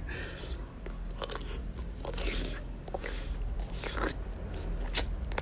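A person biting into and chewing a large oyster topped with chili sauce: close-up eating mouth sounds, irregular short clicks and smacks, the sharpest a little before the end.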